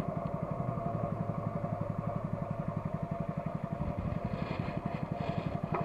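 A small boat engine running steadily, pushing the boat along, with a fast, even putter.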